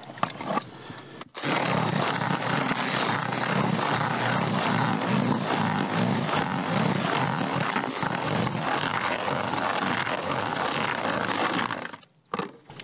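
Hands mixing freshly moistened groundbait in a bucket, a dense, steady scraping and rustling as the wetted crumb is worked through. It starts about a second in and stops abruptly near the end.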